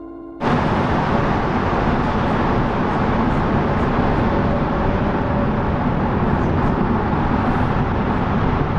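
Steady loud rushing rumble of an underground metro station, with no clear pitch, cutting in abruptly about half a second in and holding level.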